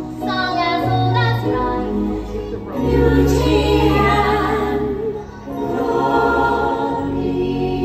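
Stage-show music with a choir singing held notes, swelling to its loudest about three seconds in and dipping briefly just after five seconds.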